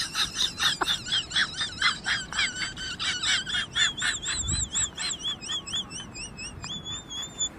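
A rapid series of high-pitched chirps, about four or five a second, each rising and falling in pitch, ending in a briefly held note near the end.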